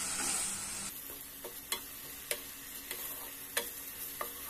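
Wooden spatula stirring desiccated coconut and milk in a nonstick kadhai on a gas flame. It knocks and scrapes on the pan about every half second over a faint sizzle. The sizzle is louder in the first second.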